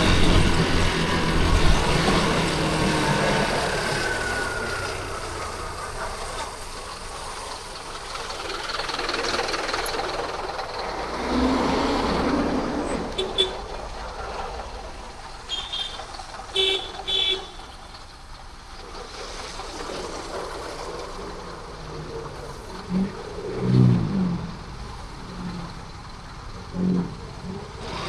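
Yamaha Crosser 150 motorcycle engine pulling hard at first, then easing off, heard from the rider's seat over steady city traffic noise. A few short high beeps sound around the middle.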